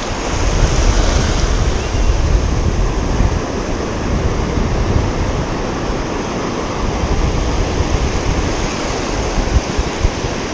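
Ocean surf washing onto the beach, a steady rushing, with wind buffeting the microphone.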